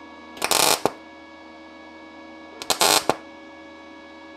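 Parkside PMSG200A1 inverter welder MAG tack-welding thin 0.7 mm steel sheet at a low setting of 70 A and 17.6 V. There are two short tack welds about two seconds apart, each about half a second of arc noise.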